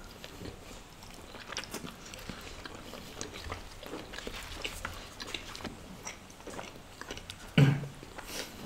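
Close-up chewing and biting sounds of people eating flatbread with curry: soft wet smacks and small clicks from the mouth and hands. A short, louder low hum of a voice comes near the end.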